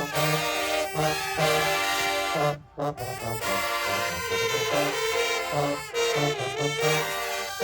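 Marching band brass playing a tune over a moving bass line, with a sharp cutoff into a brief rest about two and a half seconds in before the horns come back in.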